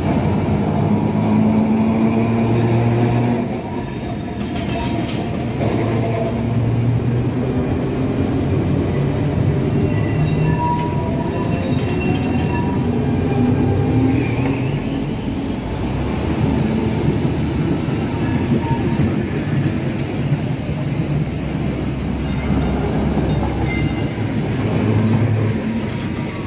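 Trams running past close by on street rails: steel wheels rumbling and rattling over the track, a low motor hum, and a few clicks. A long articulated Siemens/Sorefame tram goes by in the middle, with brief high-pitched tones around then.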